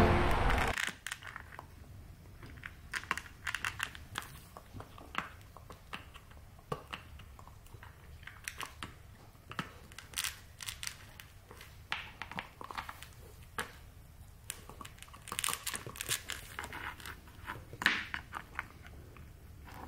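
Golden retriever puppy gnawing on a bone-shaped chew toy: irregular small clicks and crunches of teeth on the toy. Music and a voice cut off within the first second.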